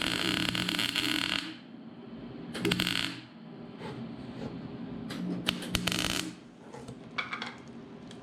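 Welding arc crackling in three short bursts, tacking a washer onto a broken-off bolt in the mower deck so the bolt can be backed out. The first burst ends about a second and a half in, a brief one comes near the middle, and a longer one about two-thirds of the way through.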